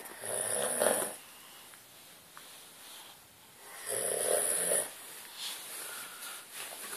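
A man snoring in his sleep, lying on his back with his mouth open: two loud snores about four seconds apart, each lasting about a second.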